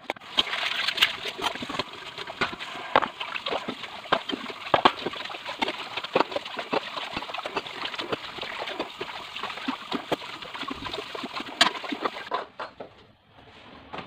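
Kitchen tap running into the sink while dishes are washed and rinsed, with frequent clinks and knocks of plates and bowls. The water stops about twelve seconds in, leaving a few quieter clinks.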